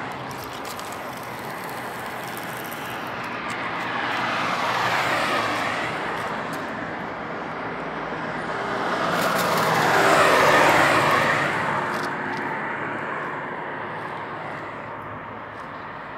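Road traffic: cars passing on the highway, the rushing tyre and engine noise swelling and fading twice, the louder pass about ten seconds in.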